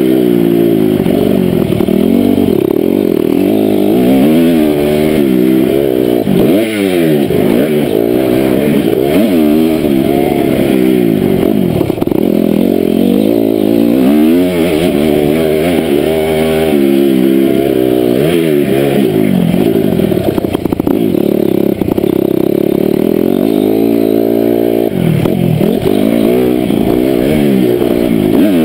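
2007 Honda CRF250 four-stroke single-cylinder engine being ridden hard, its pitch rising and falling every second or two as the throttle opens and closes and the gears change.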